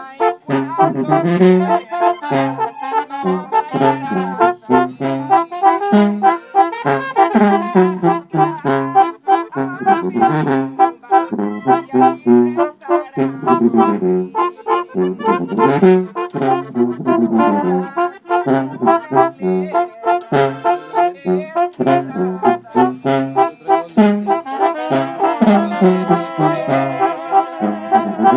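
A Mexican banda playing live. A sousaphone bounces out a bass line of short notes under trumpets and other brass, with frequent sharp hits keeping the beat.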